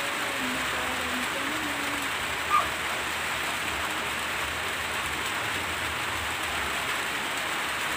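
Steady rain on a corrugated metal roof, an even hiss with no let-up. A faint wavering tone sounds in the first two seconds, and a single short tap comes about two and a half seconds in.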